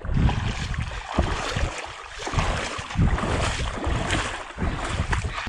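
Wind buffeting the microphone: a steady rushing noise with irregular low thumps that rise and fall.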